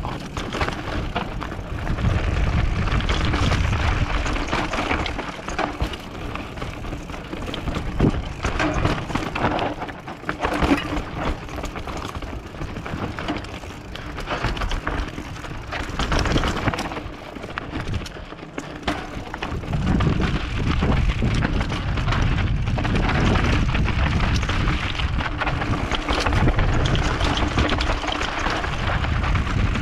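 Mountain bike descending a loose dirt and rocky trail: tyres crunching over gravel and the bike rattling over bumps, with gusts of wind rumbling on the microphone as speed builds.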